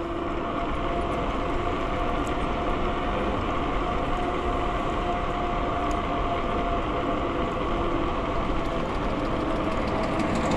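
Wind buffeting the microphone over the steady sound of a motor vehicle on the road, with a faint engine hum.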